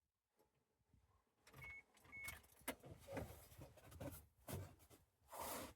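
Faint handling noises: scattered clicks and rustles, with two short high beeps about half a second apart roughly a second and a half in, and a brief hiss near the end.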